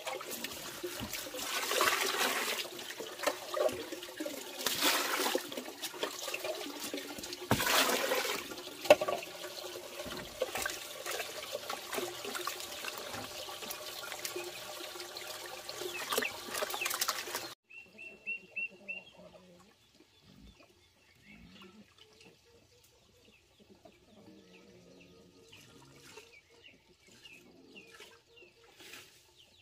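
Hands mixing chopped greens and mash in a plastic bucket of water: continuous wet sloshing and squelching with splashy knocks. About two-thirds of the way through it cuts off abruptly to a much quieter stretch with faint chicken clucks.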